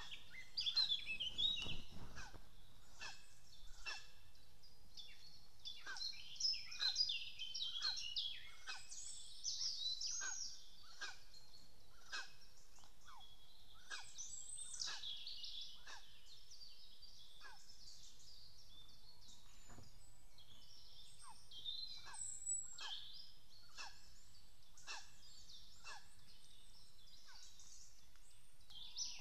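Woodland songbirds singing together, many high, varied phrases overlapping, busiest in the first ten seconds. Under them a lower, falling note repeats steadily, somewhat more than once a second.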